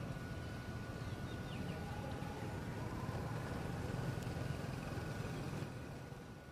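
A steady low rumble that swells toward the middle and eases off near the end, with a thin steady high tone above it.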